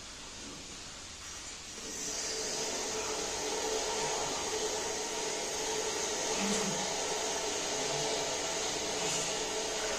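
Steady whooshing hum of a fan-type machine moving air, a little louder from about two seconds in.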